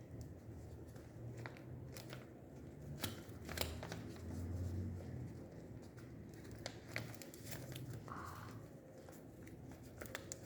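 Homemade pop-it style fidget toy being pressed by hand: irregular small clicks and pops with crinkling handling noise.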